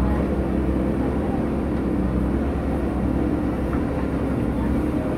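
JCB 3DX backhoe loader's diesel engine running steadily at raised revs as the backhoe arm digs, the engine note having just come up under load at the start.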